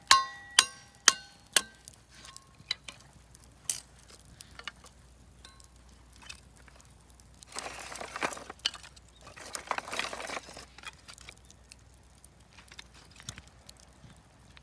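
Four quick, ringing clinks of hard objects struck together, about half a second apart. Scattered small clicks follow, then two short bursts of rustling or scraping near the middle, beside a wood fire.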